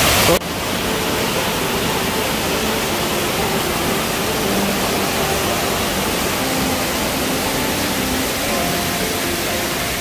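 Waterfall rushing steadily as it cascades down a rocky channel, after an abrupt cut about half a second in.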